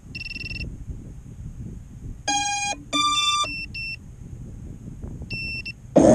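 An FPV hexacopter's electronics playing startup beeps as its Betaflight flight controller reboots: a short high beep, then two louder tones a little over two seconds in, then a few more short high beeps. Just before the end the hexacopter's motors spin up loudly.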